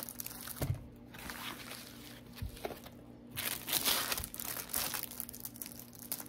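Plastic packaging crinkling and rustling as a rolled diamond painting kit in a clear plastic sleeve is slid out of a bubble mailer and handled. The crinkling is loudest a little past halfway, with a couple of soft bumps in the first half.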